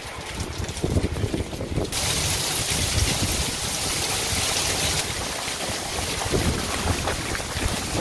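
Rain falling hard, a steady hiss that comes in abruptly about two seconds in, over wind rumbling on the microphone.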